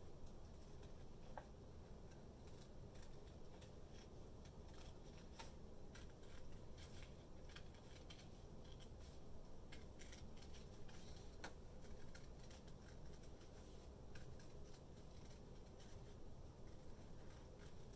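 Scissors snipping through paper in a long run of faint, short cuts.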